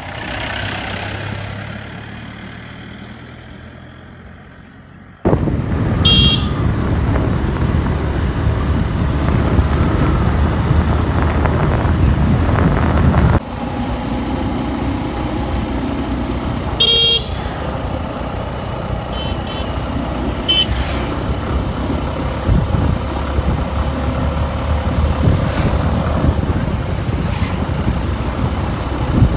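Motorcycle on the move: steady engine and wind rush, with a vehicle horn honking briefly twice, about six and seventeen seconds in, and a few fainter toots later.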